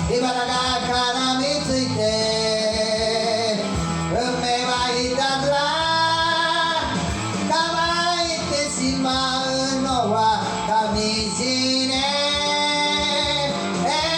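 A voice singing a rock song, imitating the original singer's style, over a rock backing track with guitar. Long held notes with vibrato.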